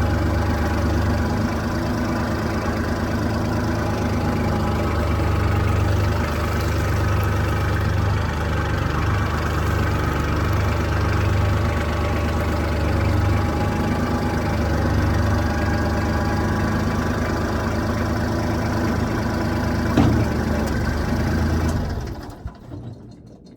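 Kubota tractor's diesel engine running steadily, with a single short knock about twenty seconds in, then fading out near the end.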